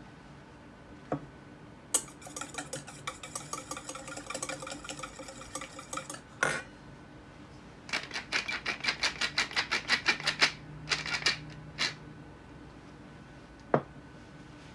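A wire whisk beating egg yolks in a stainless-steel bowl makes a quick metallic rattle, with the bowl ringing, ending in a knock. A wooden pepper mill then grinds over the bowl in a run of rapid clicks, and near the end there is a knock as the mill is set down on the wooden table.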